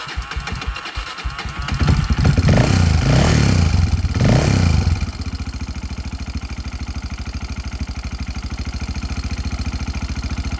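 Single-cylinder four-stroke engine of a 1997 Honda TRX300EX ATV, cammed, just started cold on choke. It runs unevenly at first, is revved up a few times, then about halfway through settles into a steady idle.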